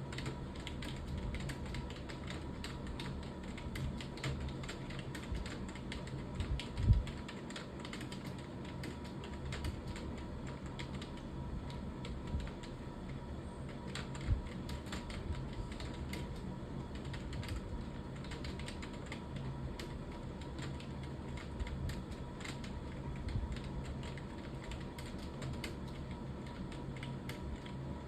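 Continuous typing on a computer keyboard: a fast, steady stream of key clicks, with one louder thump about seven seconds in.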